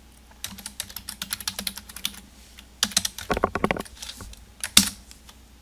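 Computer keyboard typing: a run of separate keystrokes, then a quick, heavier flurry of keys about three seconds in, and one louder single keystroke near the end.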